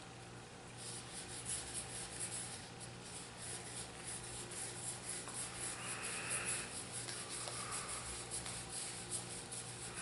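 Magic: The Gathering cards sliding and rubbing against each other as a stack is thumbed through in the hands: a soft, rapid scratching rustle that starts about a second in.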